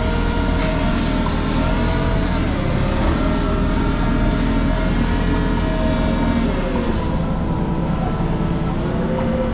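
An engine running steadily, a continuous drone whose pitch wavers slightly.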